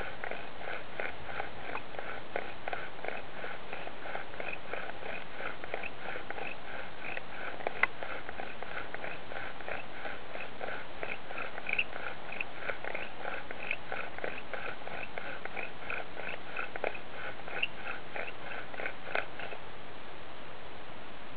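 Bow drill in use: a seasoned yellow pine spindle grinding against a yellow pine hearth board with each back-and-forth stroke of the bow, a steady rasping rhythm of about three strokes a second. The strokes stop near the end.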